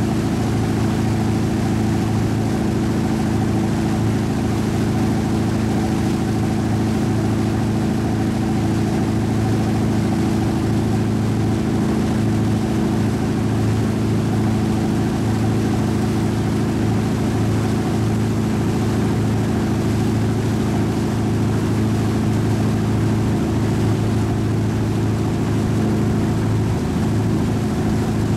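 Motorboat engine running steadily at towing speed, an even low hum with no change in pitch, over a steady rushing hiss.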